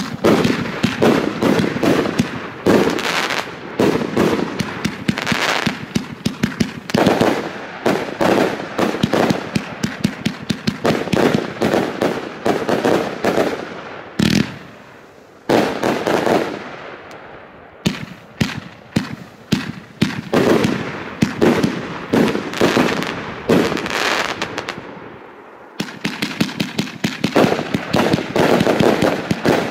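Funke Cloud Connected 259-shot firework battery firing rapid volleys of shots. There is a brief pause about halfway through and a shorter lull a few seconds before the end.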